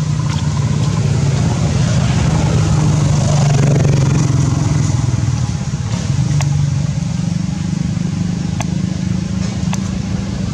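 A motor engine running steadily: a low hum that swells slightly a few seconds in, with a few faint clicks in the second half.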